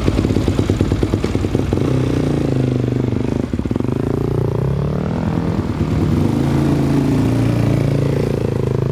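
Dirt bike engine running at a fast, even idle pulse, then revved, its pitch rising and falling several times.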